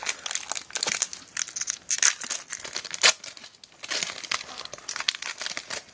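Foil wrapper of a Pokémon card booster pack crinkling and crackling as it is handled and torn open, with a few sharper snaps about two and three seconds in.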